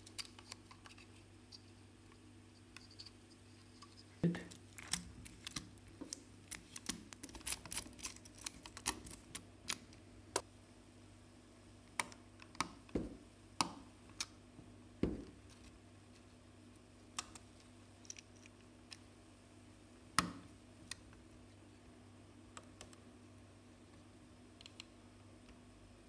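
Scattered small plastic clicks and taps as drone body parts are handled and fitted together and a tiny connector is pressed in with a slim metal tool; the clicks cluster in the first half and thin out after about twenty seconds, over a faint low hum.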